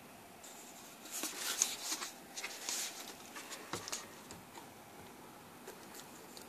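Light clicks and rustling from small objects being handled, clustered between about one and four seconds in, over a faint steady hiss.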